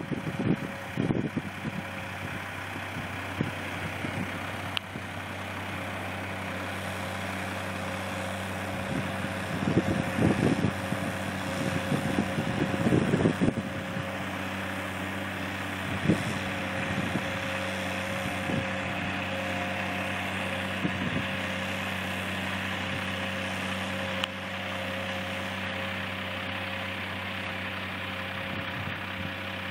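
Farm tractor engine running steadily with a constant low hum and a steady whine above it. A few louder, uneven bursts of noise come about a third of the way in.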